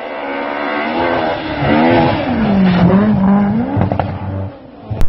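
A rally car's engine approaching at speed, growing louder, its revs dipping and rising again as it comes on, then falling away about four and a half seconds in.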